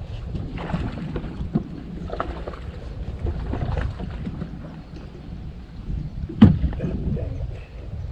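Wind rumbling on the microphone aboard a fishing boat while a bass is fought and landed, with a few short sharp noises and one louder thump about six and a half seconds in.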